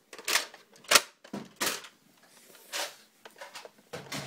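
Sharp plastic clicks and clacks of Nerf foam-dart blasters being handled, about five distinct knocks at irregular spacing with fainter ticks between.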